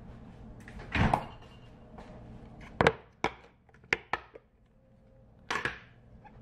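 Kitchen handling sounds: a refrigerator door shutting with a thud about a second in, then a glass food container set down on the counter and its snap-lock lid clips flipped open with several sharp clicks, and the lid pulled off near the end.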